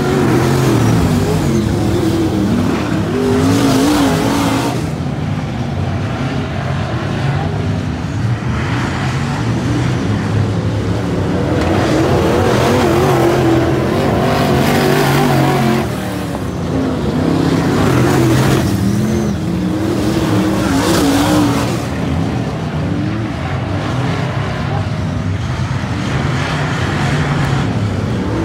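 Several dirt-track race cars' engines running hard around the oval, their pitch rising and falling again and again as they throttle up and back off through the turns.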